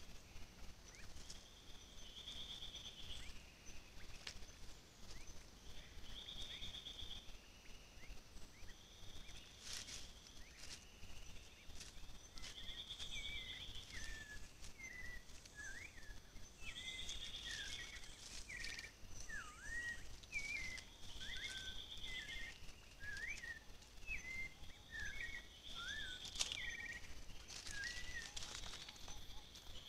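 Forest ambience: a buzzy trill repeating about every two seconds over a steady faint high whine, with a bird singing varied short chirping notes from a little before halfway through, and a few sharp clicks.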